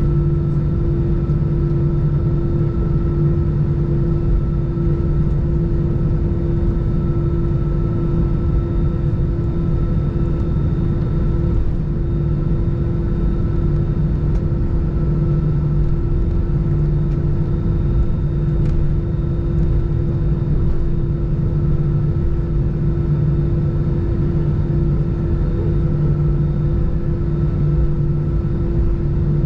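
Airbus A320 cabin noise while taxiing with the jet engines at idle: a steady drone with a low rumble and two constant humming tones, unchanging throughout.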